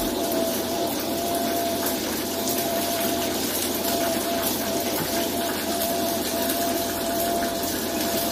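Steady airliner cabin noise: an even rushing drone with a constant whining tone held through it.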